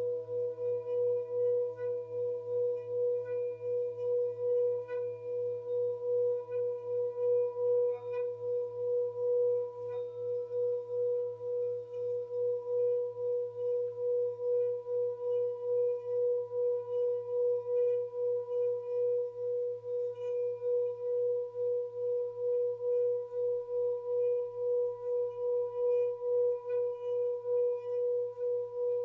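Tibetan singing bowl ringing in a long sustained tone made of several pitches, wavering in loudness in a steady pulse.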